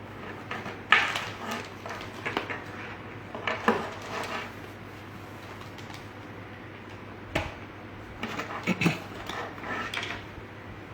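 A cycling handlebar bag being taken out of its packaging by hand: irregular rustles and light clatters, with a quieter pause in the middle.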